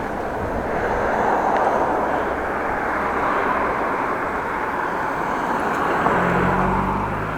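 Steady rushing noise of wind and passing road traffic heard while cycling, swelling twice. A low steady hum joins near the end.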